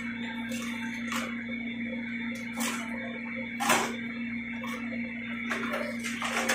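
Several sharp knocks and taps as white plastic pipe and fittings are handled and set down on a concrete floor beside a pipe fusion welder, over a steady hum.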